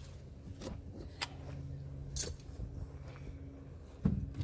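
Scattered light knocks and clicks from hand work on a wooden chicken coop: four in all, the loudest about two seconds in. A faint steady low hum runs underneath.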